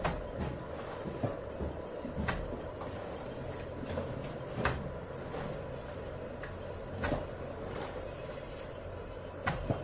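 Cement mortar being scooped by hand from a metal pan and thrown onto a brick wall: irregular sharp knocks and slaps, about six in ten seconds, over a steady background hum.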